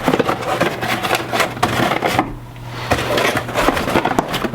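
Cardboard box and packaging being handled and opened: a quick run of rustles, scrapes and small clicks, with a short lull a little over two seconds in.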